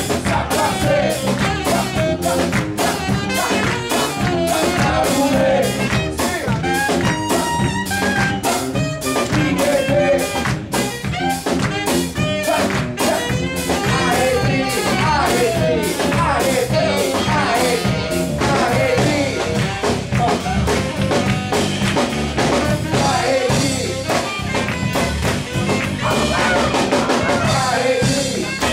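Live band playing with a steady drum-kit beat, bass guitar and tenor saxophone, with voices singing into microphones over it.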